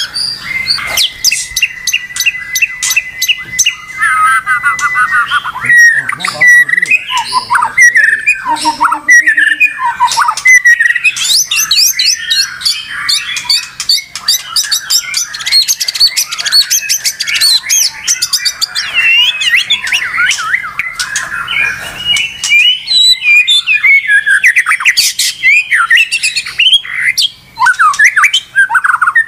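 White-rumped shama singing nonstop in a long, varied song. It opens with a held steady whistle for the first few seconds, then runs into fast trills, gliding whistles and rapid clicking chatter.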